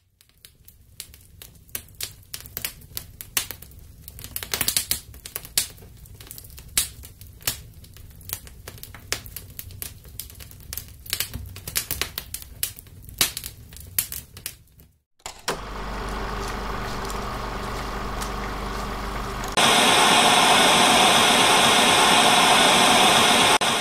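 Crackling fireplace sound effect: irregular pops and snaps over a low rumble for about fifteen seconds. After a brief break comes a steady hiss with a low hum, and about twenty seconds in a louder, even TV static hiss takes over.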